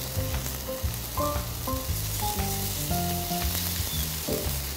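Pork tenderloins sizzling on a hot charcoal grill's expanded-metal grate as barbecue sauce is brushed onto them, a steady hiss with quiet background music underneath.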